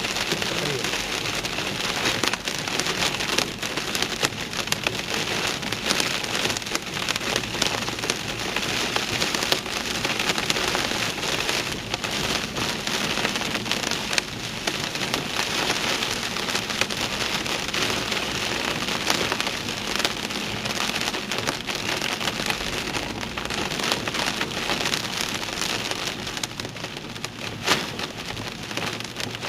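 Heavy downpour pelting a car, heard from inside: a dense, steady hiss of rain with many sharp individual drop hits.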